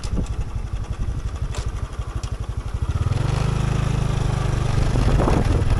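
Vehicle engine running on the move, a rapid low pulsing that turns steadier and a little louder about three seconds in.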